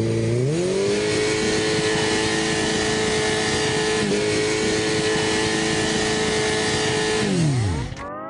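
Vehicle engine revving up and held at steady high revs for about six seconds, then dropping off near the end.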